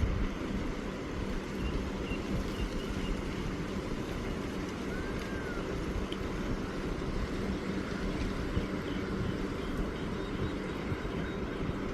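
Steady low outdoor rumble with faint, scattered small-bird chirps, and a brief rising-then-falling bird call about five seconds in.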